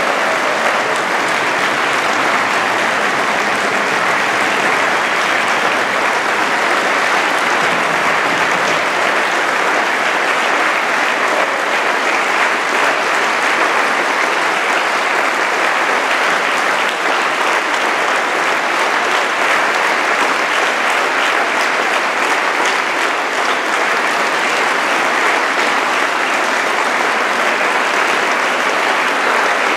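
Sustained applause: many people clapping steadily and evenly, the audience joined by choir and orchestra members.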